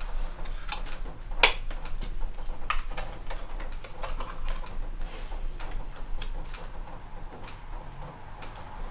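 Scattered sharp clicks and taps of handling, the loudest about a second and a half in, among them a cigarette lighter struck about six seconds in.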